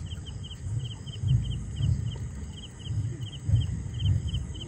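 Crickets chirping at night in quick pairs, a few pairs a second, over a low uneven rumble.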